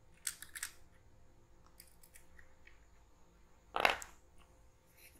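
Light plastic clicks from handling an eMMC BGA socket adapter and its small plastic chip stencils. A quick cluster of clicks comes in the first second, then one louder knock about four seconds in.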